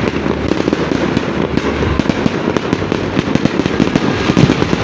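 Fireworks going off in a dense, continuous crackle of many rapid overlapping pops.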